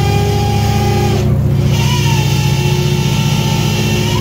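Steady, loud low drone of a fishing vessel's engines and deck machinery, with a thin whine above it that glides up in pitch about two seconds in and then holds.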